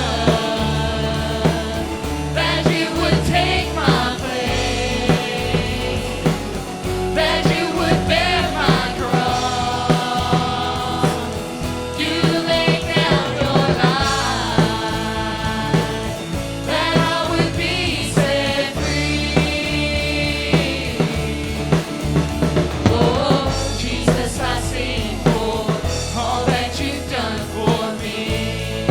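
Contemporary Christian worship song played by a band, with drum kit and bass keeping a steady beat under singing voices.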